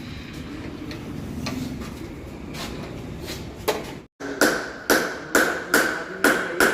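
A hammer striking metal about twice a second, six sharp ringing blows, starting after a sudden cut about four seconds in; before that, only low background noise with a few faint clicks.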